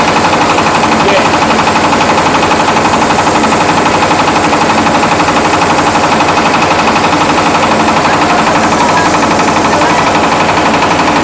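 MAKTANI MT212 husk-free rice huller running steadily while milling paddy, a loud, fast, even rattling drone from its motor and milling rotor as white rice pours out of the chute.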